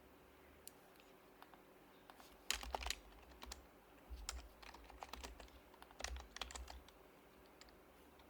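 Typing on an HHKB Professional Hybrid Type-S keyboard, its silenced Topre keys clacking softly. A few single keystrokes come first, then quick runs of keystrokes from about two and a half seconds in to about seven seconds.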